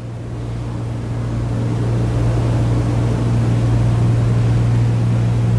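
Low, steady electrical hum with a hiss over it from the church sound system, slowly growing louder.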